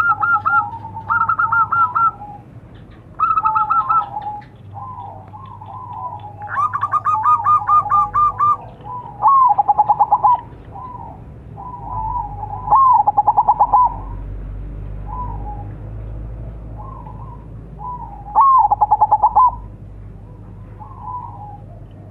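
Zebra dove (perkutut) singing: rapid, trilling coo phrases repeated every few seconds, with softer coos between them.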